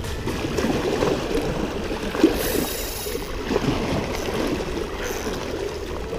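Water flowing and lapping, with one sharp click a little over two seconds in and a brief high hiss just after it.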